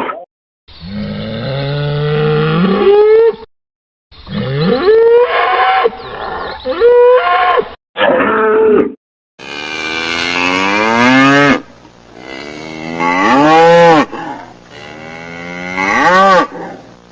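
Cattle mooing and bellowing: a series of long, loud calls whose pitch rises and falls, from several different recordings cut together with brief dead-silent gaps between them.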